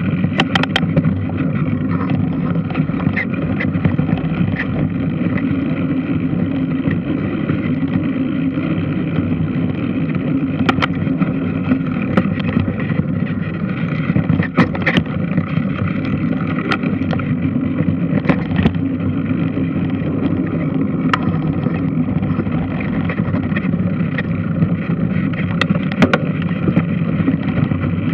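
Washing machine running: a steady low mechanical drone with scattered sharp clicks and knocks.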